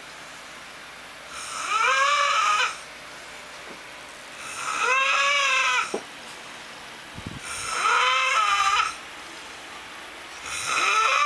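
A man snoring, each snore a drawn-out, high, whining tone that rises then falls in pitch, like a cat stuck in his throat. Four snores come about every three seconds; the last is cut off at the end.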